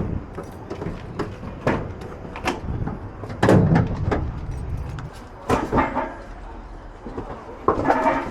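A string of separate knocks and clunks, the heaviest a low thump about three and a half seconds in, as a large water heater is handled and loaded into a cargo van.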